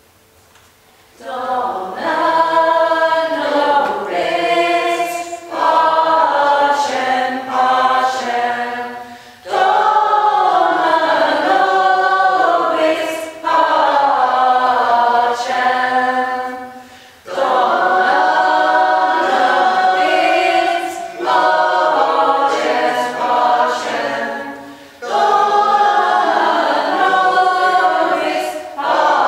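Small mixed choir of men's and women's voices singing unaccompanied, starting about a second in and going on in sung phrases with short breaks between them.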